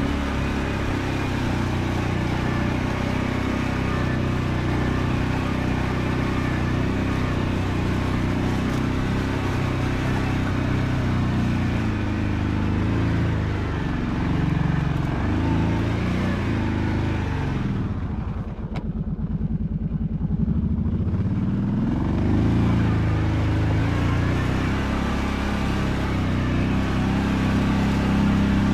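Kawasaki Brute Force 750 ATV's V-twin engine running under changing throttle, its pitch rising and falling. About eighteen seconds in it drops back to a slow, even idle-like beat for a few seconds, then picks up again.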